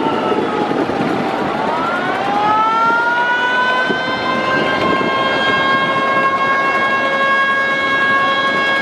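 Passenger launch horn sounding a long, loud, siren-like blast of several tones together, which slides up in pitch about two seconds in and then holds steady, over continuous background noise.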